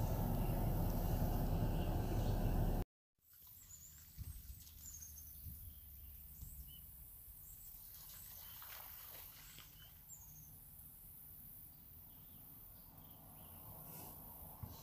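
A loud, steady low rumbling noise that cuts off suddenly about three seconds in. After it, quieter outdoor ambience with birds chirping, and a short spell of splashing about halfway through as a white-tailed deer fawn leaps through shallow rainwater.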